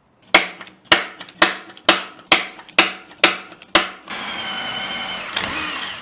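Eight sharp, ringing hammer strikes on a steel bracket, about two a second. Then a power drill runs steadily with a whine for about two seconds.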